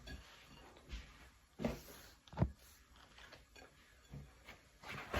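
A knife cutting through a tough pineapple, giving a handful of separate knocks about a second apart, the loudest near the middle.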